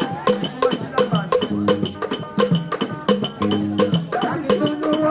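Traditional Mbala dance music: a steady beat of sharp percussive clicks, about four a second, over low drum notes, with group singing near the start and end.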